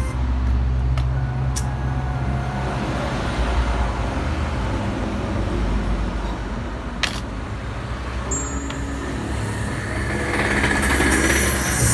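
A vehicle engine running with a steady low rumble, with a single sharp click about seven seconds in.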